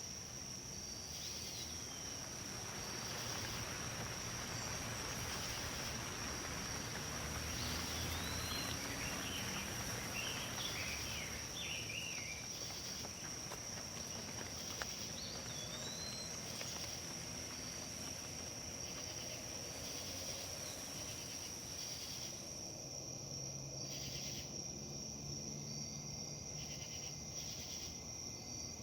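Wind rustling through leaves, swelling for several seconds early on and then easing, over a constant high-pitched trill. A few short chirps come in the first half.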